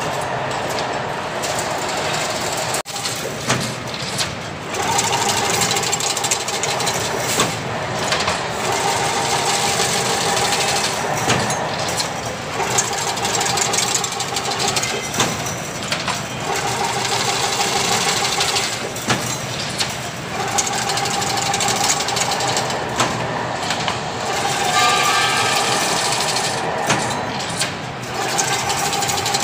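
Automatic single-wire chain link fence machine running, weaving wire into mesh: a steady mechanical clatter with sharp clicks, and a humming tone that comes and goes every few seconds as the machine cycles.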